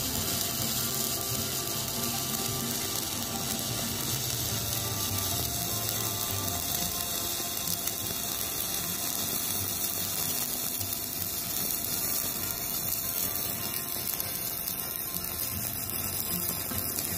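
Stick-welding arc from a G308 (308 stainless steel) electrode on a Kobe MIG-235K inverter welder in stick mode, a steady crackling hiss as the bead is laid. It cuts off at the very end as the arc is broken.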